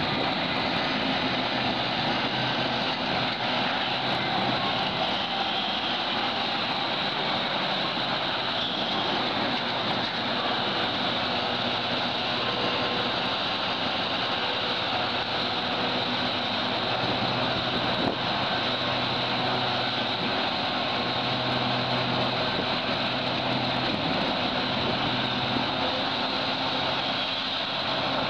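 Heavy diesel engines of a Hitachi hydraulic mining shovel and a haul truck running steadily under load, a constant drone with a low engine hum beneath it.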